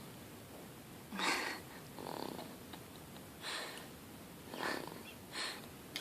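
Sleeping baby snoring: five short, noisy breaths about a second apart.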